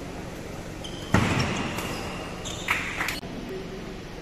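Badminton rally sounds: a loud, sharp racket strike on the shuttlecock about a second in, then two quicker strikes close together later. Court shoes squeak on the floor around the hits.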